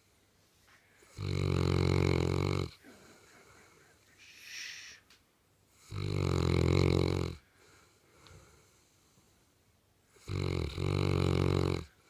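St. Bernard snoring in her sleep: three loud snores about four seconds apart, each about a second and a half long, with a soft hissing breath between the first two. The last snore catches briefly near its start.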